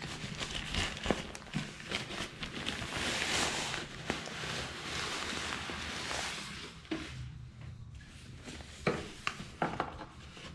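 Crinkling and rustling of plastic packaging and raincoat fabric being handled, dense for the first several seconds, then thinning out to a few sharp crinkles and clicks.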